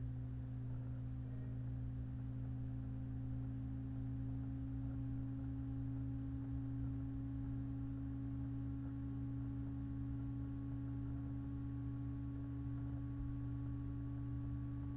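Steady low electrical hum, two held tones with fainter higher tones above them, with no speech.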